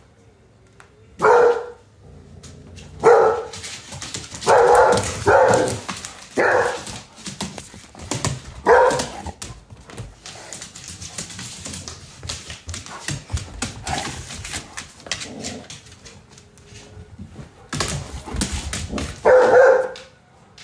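A dog barking in short loud barks, about a dozen in all, some singly and some in quick pairs, with a quieter stretch of several seconds in the middle.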